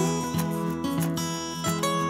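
Background music led by a plucked acoustic guitar, one note after another.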